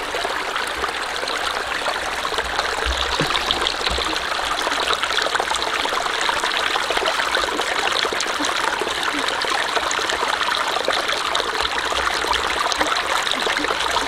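Shallow rocky stream running and trickling steadily over stones.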